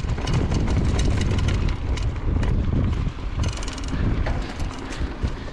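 Mountain bike riding fast down a dirt trail: wind buffeting the camera microphone over tyre noise, with frequent rattles and clicks from the bike over bumps. A short burst of rapid ticking comes about three and a half seconds in.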